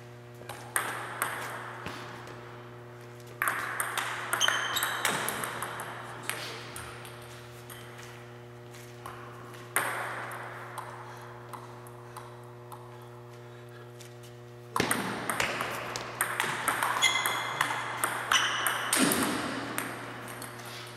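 Table tennis rallies: the ball clicking off the paddles and bouncing on the table in quick exchanges, in several bursts with pauses between points. A steady low hum runs underneath.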